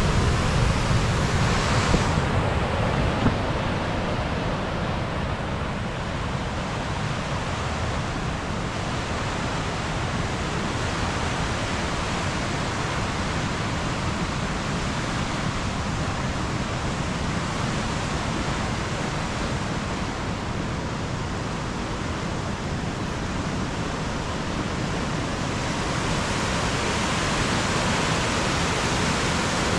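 Waterfall rushing with a steady, even roar of falling water. It eases slightly after the first couple of seconds and swells again near the end.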